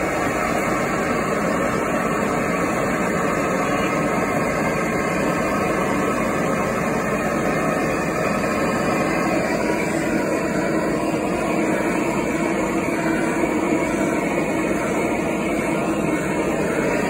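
Hand-held gas torch burning with a steady, even rushing noise as it heats metal for a hot patina.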